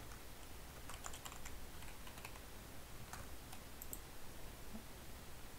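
Faint computer keyboard typing: a few scattered keystrokes in small clusters, with pauses between.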